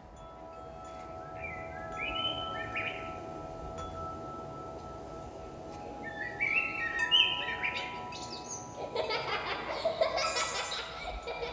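Music from a marching band's front ensemble: a held chord of several steady tones, with bird chirps over it. A dense chime-like shimmer comes in about nine seconds in.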